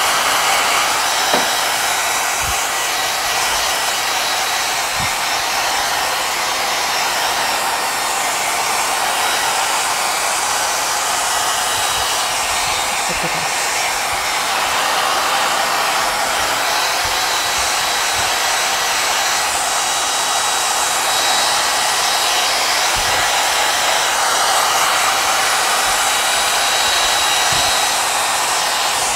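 Handheld blow dryer running steadily, drying wet glitter paint: an even rush of air with a faint high whine.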